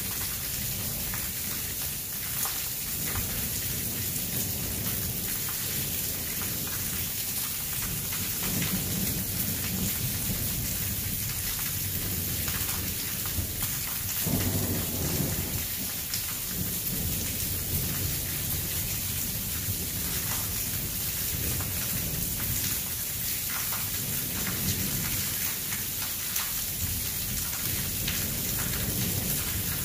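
Steady rain hissing down during a thunderstorm, with thunder rumbling underneath; the strongest roll of thunder comes about 14 seconds in.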